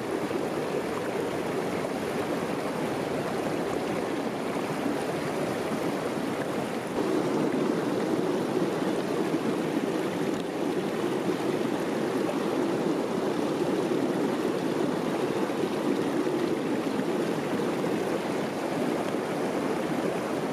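Shallow creek water rushing steadily over stones, a little louder from about seven seconds in.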